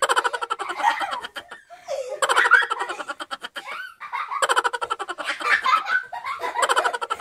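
Laughter in quick, evenly pulsed ha-ha-ha runs, in three stretches with short breaks about two and four seconds in.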